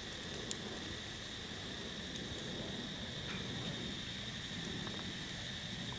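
Insects chirring in the forest, a steady high-pitched drone with two unbroken pitches, over faint low background noise.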